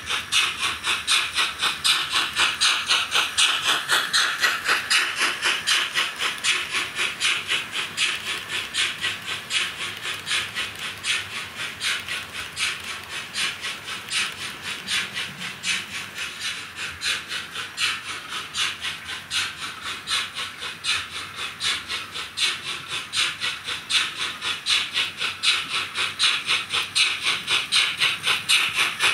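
ESU LokSound V5 sound decoder in a model DR class 18 steam locomotive playing steam-exhaust chuffing through its onboard speaker as the locomotive runs. The chuffs are hissy and come in a fast, even rhythm.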